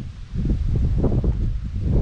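Wind buffeting the microphone in a steady low rumble, with rustling and soft footsteps on the trail about every half second.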